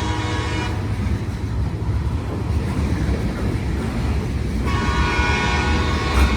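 Locomotive air horn of a CSX freight train sounding, cutting off under a second in and blowing again about two seconds before the end, over the steady low rumble of the train.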